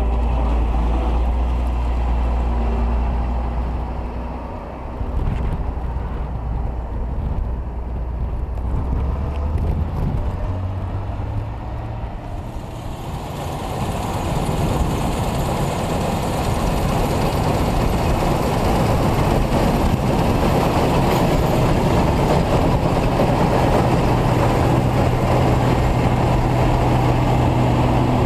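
Claas Lexion 420 combine harvester running while its header mows a standing crop for forage. A steady engine hum underlies the machine noise, which gets louder and fuller about 13 seconds in.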